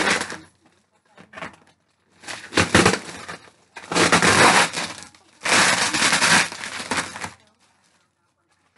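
Plastic bubble wrap that is sticky on one side crackling and rustling as it is pulled and peeled off a boxed item. It comes in three long bouts, after a few faint crackles at the start.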